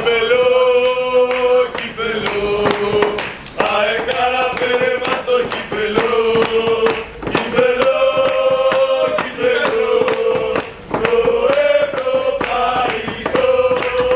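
A group of men singing a chant together in unison, holding long notes in short phrases, with hand claps through it.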